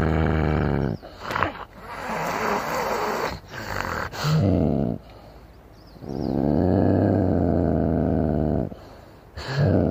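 A young moose's long, low, steady-pitched moans: one ends about a second in and another runs from about six to nine seconds in, with shorter calls around four seconds and near the end. Between the moans there is a rough hissing, scraping noise.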